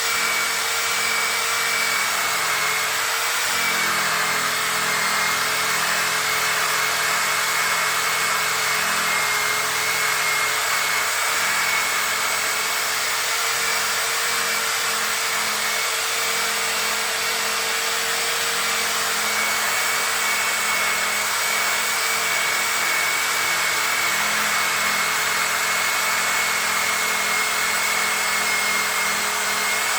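Electric power tool running steadily, spinning a polishing pad against a plastic headlight lens to buff out scratches: a constant motor whine over an even rushing noise.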